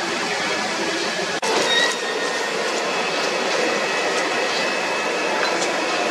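Steady rushing noise of a busy dyeing workshop, with a few faint clinks and a brief break about a second and a half in.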